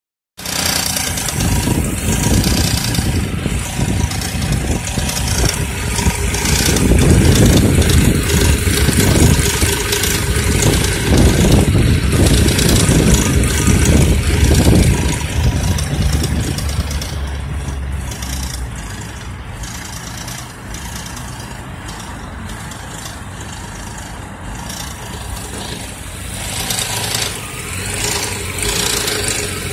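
Engine running with a metallic rattle, which the owner puts down to a low oil level. It is louder through the middle stretch, then settles quieter and picks up again near the end.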